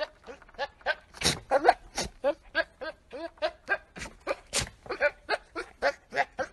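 Goat giving a rapid string of short bleats, about three a second.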